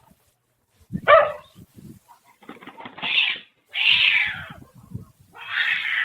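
A cat calling out four times, each call under a second long, with short pauses between.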